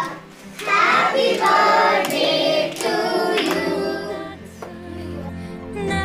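A group of children singing together. About three and a half seconds in, a steady music track comes in beneath the voices.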